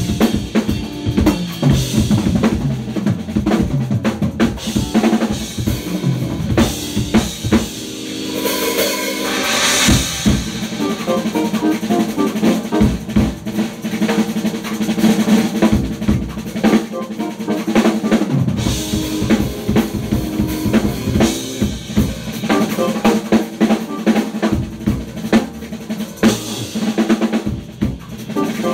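Drum kit being played, with dense kick, snare and cymbal strokes; the playing builds to a louder peak about ten seconds in.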